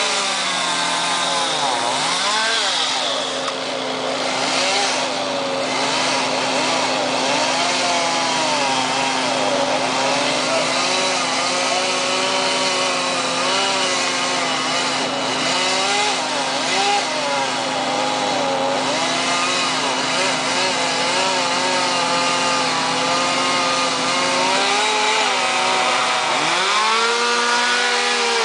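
Chainsaw running and revving up and down again and again, over a steady low engine hum.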